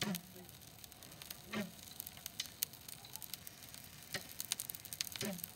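Freshly lit brush pile of dry branches burning, crackling with sharp, irregular pops and ticks.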